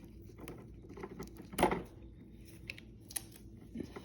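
Hands working a braided hose fitting: scattered light clicks and taps of metal and braid, with one louder short rustling knock about a second and a half in.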